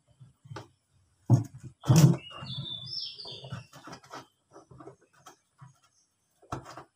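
Handling knocks and rubbing as a metal immersion heating element is worked into its fitting in a plastic water tank, with two heavier thumps about a second and a half and two seconds in. A bird chirps briefly just after the thumps.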